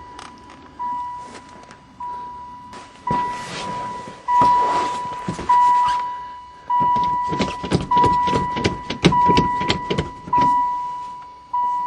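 A van's dashboard warning chime dinging over and over, about once every 1.2 seconds, with its electrics powered by a freshly connected battery. Scattered clicks and rustling sound alongside it.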